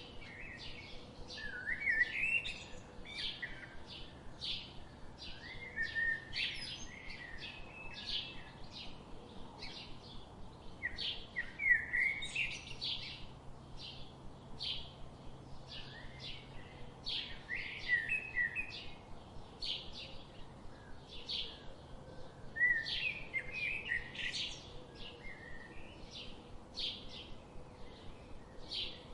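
Birds singing: one bird repeats a short, high chirp about twice a second, steadily, while another sings a brief warbling phrase about every five seconds.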